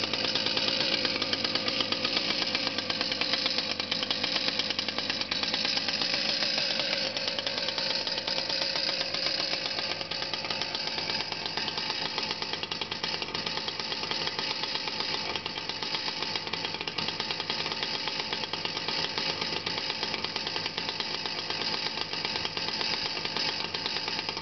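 28cc air-cooled strimmer engine in an RC petrol boat, running continuously; about ten seconds in it settles to a slightly lower, quieter, steady idle.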